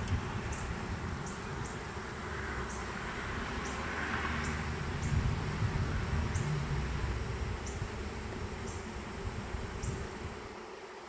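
A swarm of honey bees buzzing steadily as it walks into a hive box, with workers at the entrance fanning their wings to spread scent that calls the rest of the swarm in. The buzz fades near the end.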